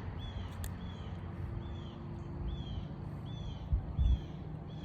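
A bird calling over and over, one short arched chirp about every half second, over a steady low rumble, with two dull thumps near the end.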